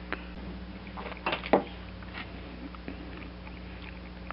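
Metal parts and tools being handled on a workbench: a few scattered clicks and a quick cluster of sharp knocks about a second and a half in, over a steady low hum.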